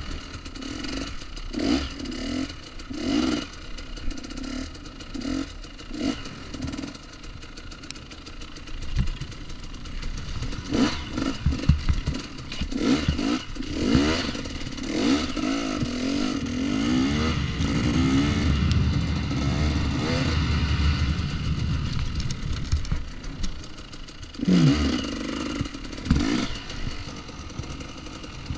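2014 KTM 250 XC-W two-stroke dirt bike engine under short, repeated bursts of throttle, then revving up and down and held more steadily in the middle before more short blips near the end. A few sharp knocks come from the bike over rough ground.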